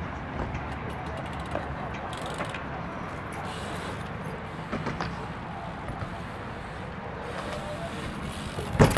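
BMX bike rolling on a concrete skatepark surface, with a steady low rumble and a few light clicks. A loud sharp clack comes right at the end as the bike hits a concrete ledge.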